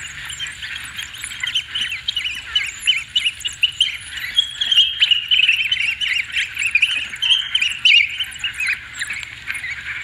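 A pack of African wild dogs (painted wolves) twittering: a dense, continuous chorus of short, high, bird-like chirps and squeaks from several animals at once.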